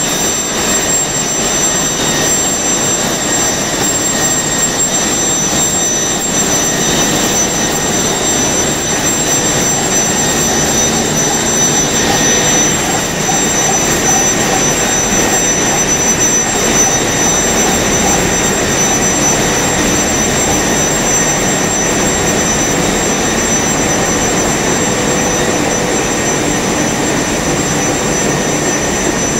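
Full-servo adult diaper pull-up pant making machine running at production speed: a loud, steady, dense mechanical din with two high, steady whines over it.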